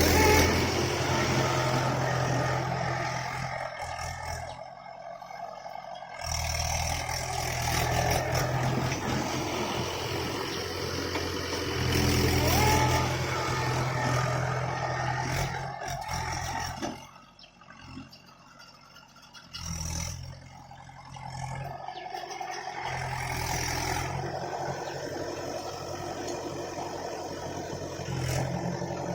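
Tractor diesel engines running and revving under load, in a series of short clips that cut abruptly from one to the next.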